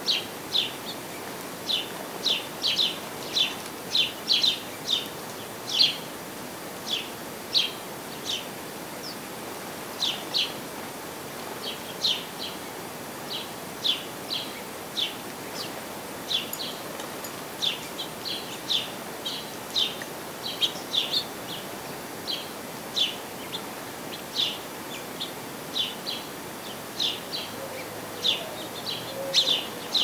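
Sparrows and finches chirping: a steady run of short, sharp chirps, about one or two a second and now and then overlapping, over a faint steady outdoor hiss.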